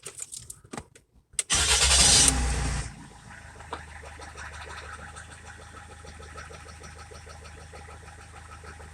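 Rover 75 engine starting about a second and a half in, running loud for about a second, then settling to a steady idle with a light, rapid tapping. The tapping is the idle noise the owner is trying to identify.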